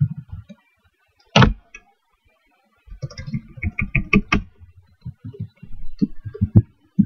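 Computer keyboard typing: a few keystrokes, a pause of about two seconds broken by a single sharper key press, then quick runs of keystrokes through the second half.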